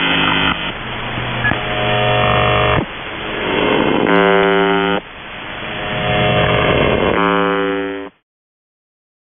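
Shortwave radio reception of the Russian military station UVB-76, 'The Buzzer', on 4625 kHz: harsh buzzes about a second long, around four and seven seconds in, with static and interference between them. The audio cuts off suddenly about eight seconds in.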